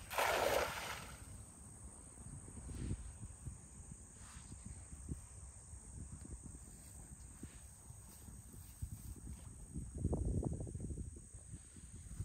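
Insects chirring with a steady high-pitched tone. A short loud rushing noise comes right at the start, and another, lower rush of noise near the end.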